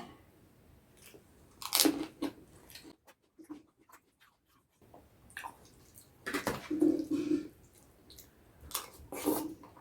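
Close-miked chewing and crunching of crisp food, in a few separate loud bouts with a near-silent gap near the middle.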